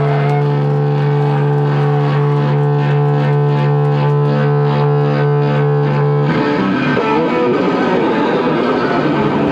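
Live rock band playing loud with distorted electric guitar, bass and drums: a held, droning chord under fast, even beats, breaking about six seconds in into a harsher, noisier wash of distorted guitar.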